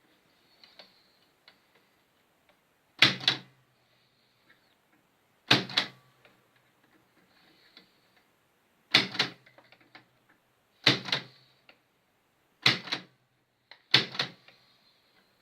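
AEG Mignon index typewriter striking single characters: six sharp clacks spaced irregularly a couple of seconds apart, with faint small clicks in between.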